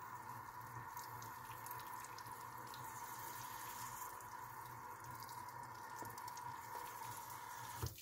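Tap water running steadily into and over a washable vacuum-cleaner dust bag at a sink. It cuts off suddenly just before the end.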